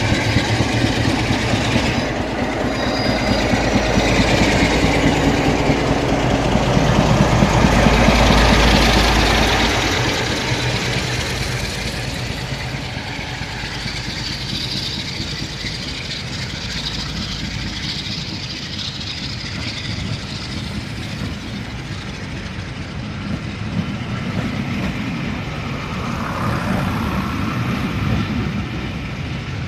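Class 47 diesel-electric locomotive's Sulzer twin-bank twelve-cylinder engine working hard as the train pulls away, loudest about eight seconds in as the locomotive passes, then giving way to the rolling and clatter of the coaches going by.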